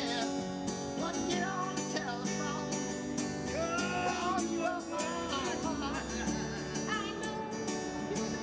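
Music: a street musician's acoustic guitar with a singing voice over it.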